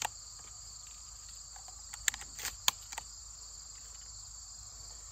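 A steady, high-pitched chorus of insects, with a handful of sharp clicks about two seconds in as shells are worked into the Aksa S4 shotgun's tube magazine past its tight shell catch.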